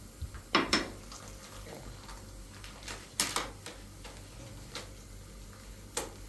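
A few sharp clinks and knocks of hard objects being handled, the loudest about half a second in and about three seconds in, with another near the end.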